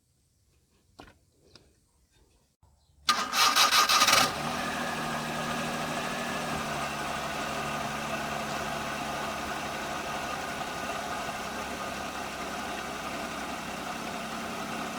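Maruti 800's three-cylinder petrol engine cranked on the starter for about a second, catching about four seconds in and settling into a steady, even idle. It idles smoothly on fresh spark plugs, the random misfire and vibration cured.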